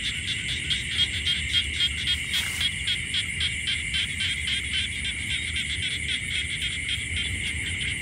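A quick, even series of animal calls, about three a second, weakening after about five seconds. Behind them is a steady high-pitched drone of insects.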